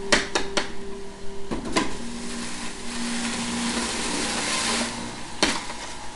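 Electric centrifugal juicer running and shredding zucchini pushed down its feed chute, a steady whirring grind with a faint hum. Several sharp knocks from the pusher and produce in the chute, loudest right at the start and again about five and a half seconds in.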